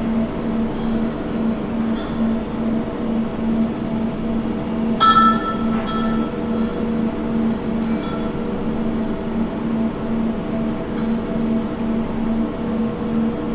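Steady mechanical hum of shipboard machinery in a steel corridor, with a low tone that wavers evenly. A single metallic clink rings out about five seconds in.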